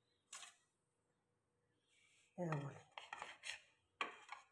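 Kitchen knife cutting the crusts off slices of white bread on a ceramic plate: one short scrape near the start, then several quick sawing strokes in the second half, with the blade scraping the plate.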